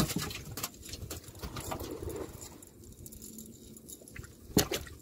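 Scattered knocks and light clinks from a cast net being handled in a wooden canoe. There is a sharp knock right at the start and another about four and a half seconds in, over a low rumble of wind on the microphone.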